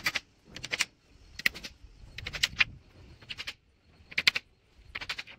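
Repeated clusters of quick, sharp clicks, about one cluster a second.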